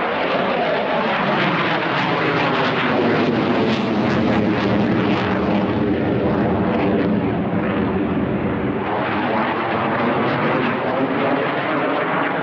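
Fighter jet flying past: a loud jet-engine rush whose tone sweeps down and then back up as it goes by.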